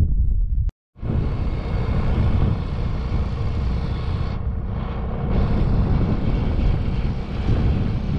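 Motorbike riding along a road: the engine runs steadily under wind rushing over the microphone. The sound cuts out completely for a moment about a second in.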